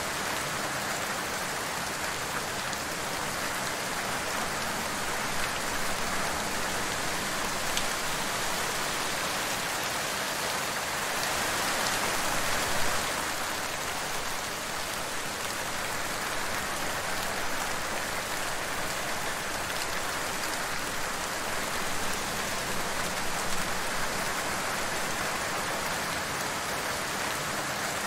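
Steady rainfall, an even hiss of rain on a surface with a few slightly louder spatters, the biggest about thirteen seconds in.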